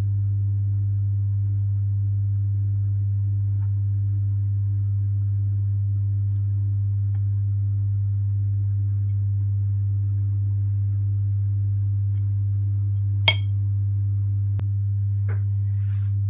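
A steady low hum at one unchanging pitch, with a single sharp click about thirteen seconds in.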